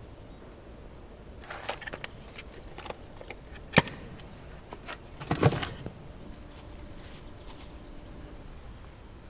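Small handling noises in a quiet room: a rustle, then a sharp click about four seconds in, the loudest sound, and a brief clatter of knocks about a second and a half later.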